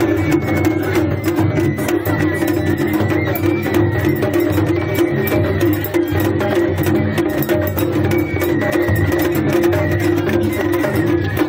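Japanese festival float's hayashi band playing: taiko drums beaten in a fast, steady rhythm under a high flute melody.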